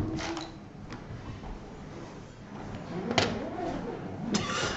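A few light clicks and knocks of small objects being handled, with a faint voice in the background.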